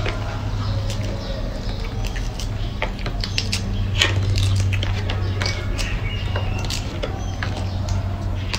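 Scattered small clicks and crackles of fruit being peeled and chewed, as a baby monkey eats lychees and longans, over a steady low hum.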